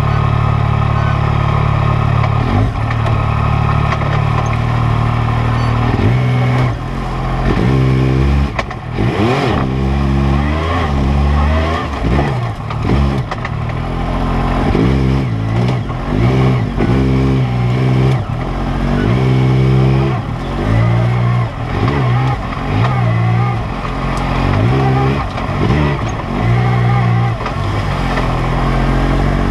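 Engine of a 2016 Yamaha YXZ1000R SE side-by-side, a 998 cc three-cylinder, heard from inside the cab. It runs steadily for the first several seconds, then is revved up and down in repeated short bursts, about one every second or two, as the machine crawls over rough trail.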